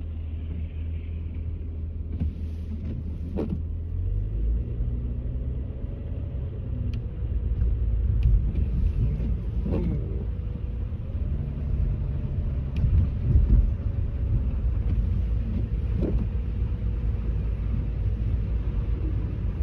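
Interior drive noise of a Nissan Maxima moving through snow: a steady low engine and road rumble heard from inside the cabin. The engine note steps up about four seconds in as the car picks up speed.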